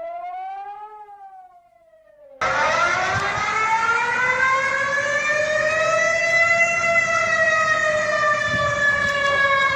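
Emergency warning siren alarm sounds. A wail rises and falls in pitch and fades out. Then about two and a half seconds in, a louder siren starts abruptly over a noisy background, rises slowly in pitch, sinks again, and cuts off at the end.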